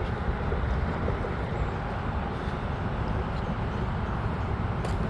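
Steady traffic noise from a nearby freeway, an even wash of sound heaviest in the low range, with no single vehicle standing out.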